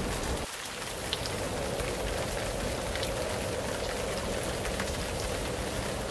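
Steady rain falling: an even hiss with scattered sharper drop ticks.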